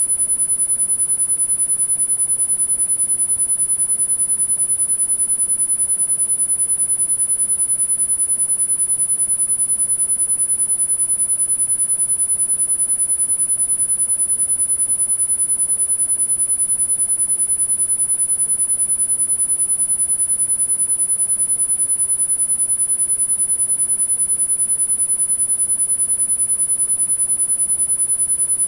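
A single very high-pitched pure sine tone, held perfectly steady without a break: a tinnitus masking tone used for sound therapy.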